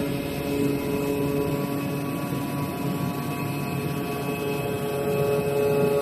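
CNC gasket cutting machine running: a steady mechanical hum with several steady whining tones over even noise.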